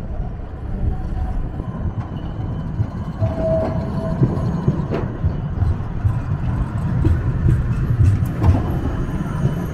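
Siemens Combino tram passing close by on street track: a steady low rumble that grows louder as it draws alongside, with a brief steady tone about three seconds in and a few sharp clicks from the wheels and running gear.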